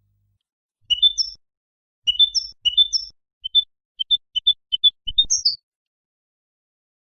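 European goldfinch singing: phrases of bright, high twittering notes beginning about a second in, then a run of short quick chirps, and a final twittering phrase about five seconds in.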